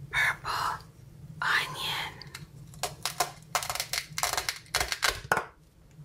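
Velcro tearing as the two halves of a plastic toy onion are pulled apart: a run of rapid crackles from about three seconds in, ending just before the end.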